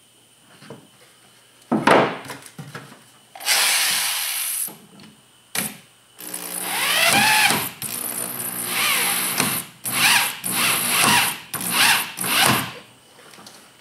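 Power drill running into a wooden board on a jon boat's stern, in several spells: one steady run, one long run whose whine rises and falls in pitch, then short trigger bursts near the end. A loud knock comes about two seconds in.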